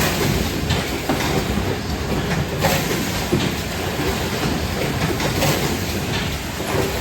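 High-speed automatic carton erector with tape sealing, running continuously with a dense mechanical clatter of many small clicks and knocks. A sharper clack comes about two and a half seconds in.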